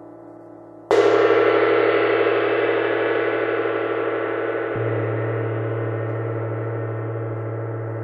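24-inch Paiste Symphonic gong struck firmly about a second in, bursting into a dense shimmering ring that slowly fades. A softer stroke about five seconds in swells its low hum.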